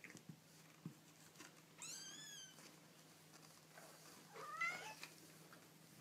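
Young kittens mewing twice: a thin, high mew that rises and falls about two seconds in, then a louder, rising mew near the five-second mark. A couple of soft taps come just before.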